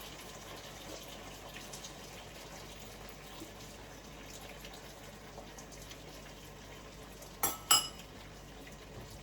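Two quick metallic clinks of a utensil against a cooking pot, a little after seven seconds in, each ringing briefly over a faint steady background hiss.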